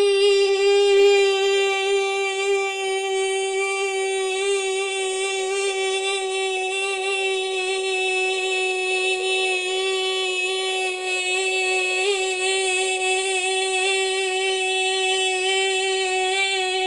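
A boy holding the 'boi' of the 'yeah boi' meme as one long, unbroken high note, steady in pitch with slight wavering.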